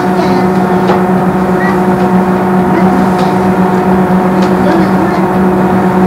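Steady electrical hum of a JR West 103 series electric train standing at a station, holding one pitch with no acceleration, with faint background sounds over it.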